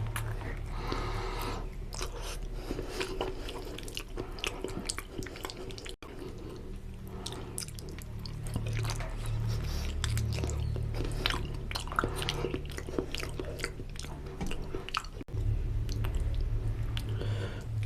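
Close-miked chewing of spicy mutton lung and intestine curry with puri: wet, irregular smacks and clicks of the mouth at work, over a low steady hum.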